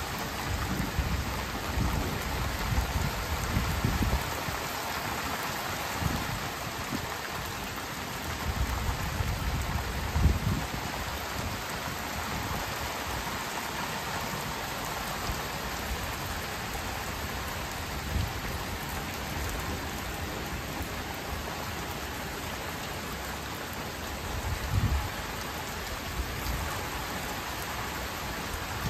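Steady rain falling on trees, lawn and patio, an even hiss, with low rumbles that swell and fade now and then, the strongest about ten seconds in and again near the end.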